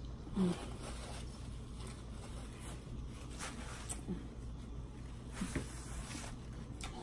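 Faint rustling of a paper napkin and small handling clicks, over a steady low electrical hum. A brief low vocal sound about half a second in.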